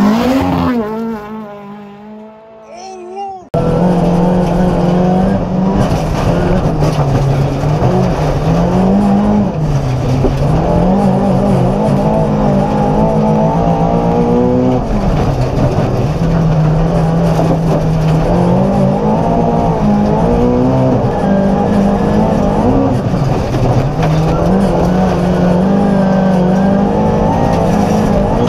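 Volvo 240 rally car driven hard on a special stage: the engine revs climb and fall over and over through gear changes and corners, with some tyre noise. During the first three and a half seconds an engine note fades away, then a sudden cut brings back the full-throttle engine.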